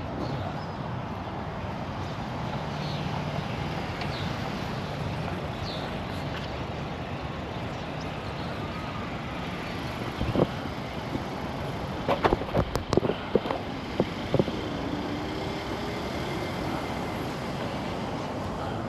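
Steady rumble of city traffic, with a few short sharp knocks in the middle.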